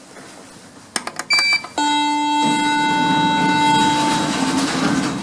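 Lift call button clicked a few times with a short high beep, then the lift's electronic bell rings a steady tone for about three seconds.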